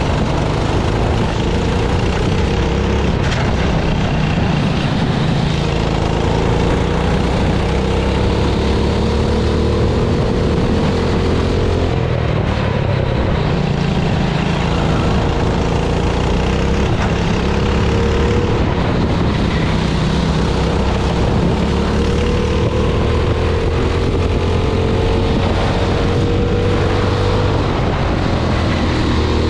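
A racing go-kart engine heard on board, its pitch climbing and dropping again and again as the kart accelerates out of corners and lifts off into them. Under it runs a steady hiss.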